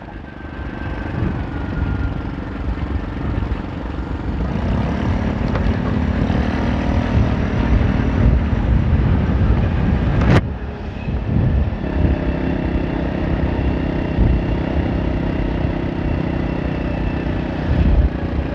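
Rusi RFi175 scooter's engine running under way, with dense low road and wind rumble; the engine note shifts a couple of times. One sharp click about ten seconds in.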